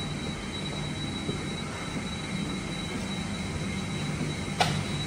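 Steady low hum of aircraft machinery with a thin, steady high-pitched whine over it. A short, sharp burst of noise comes near the end.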